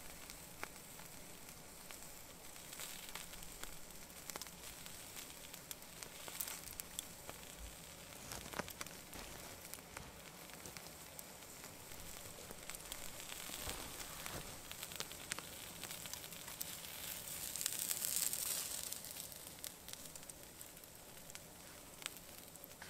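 Soft crackling and hissing with scattered small clicks, swelling briefly about eighteen seconds in.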